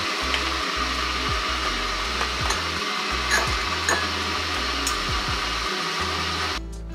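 A steady rushing hiss, with a few faint clinks of a small ceramic spoon pressing matcha powder through a metal mesh strainer into a ceramic bowl. The hiss cuts off abruptly near the end.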